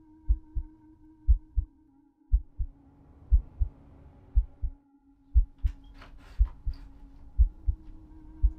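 Heartbeat sound effect from a film score: deep double thumps about once a second over a steady low drone. Everything drops out briefly near the middle, and a few short crackles come in the second half.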